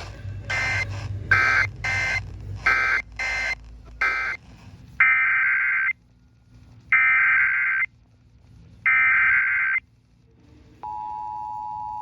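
Emergency Alert System digital data bursts, screeching tones near 1.5 to 2 kHz. A quick run of short end-of-message bursts comes first, then three louder bursts of about a second each, some two seconds apart, typical of the SAME header that opens an alert. Near the end the steady EAS two-tone attention signal begins.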